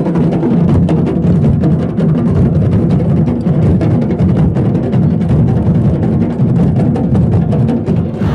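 Traditional Marquesan drumming: a fast, dense, steady beat on deep drums.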